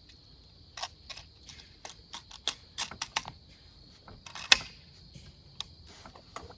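Irregular sharp mechanical clicks with one much louder snap about four and a half seconds in, typical of an air rifle being readied to fire: a .22 Hatsan Factor PCP being cocked and loaded. A steady high-pitched hum runs underneath.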